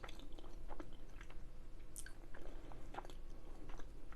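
Close-miked chewing of a mouthful of chicken tikka masala curry: soft, wet mouth clicks and smacks coming irregularly.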